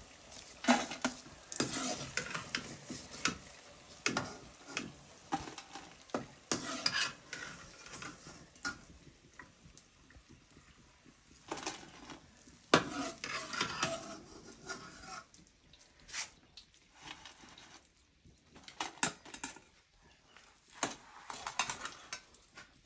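Steel slotted spoon scraping and clanking irregularly against a steel kadai and a steel plate as fried bhajias are lifted out of the oil and tipped into a bowl, with hot oil sizzling underneath.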